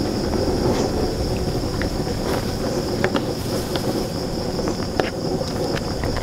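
Aluminium wok of soft-shelled turtle pieces boiling hard: a steady bubbling rumble with scattered short pops and clicks, and a wooden spatula stirring in the pan later on. A constant high insect drone, like crickets, runs under it.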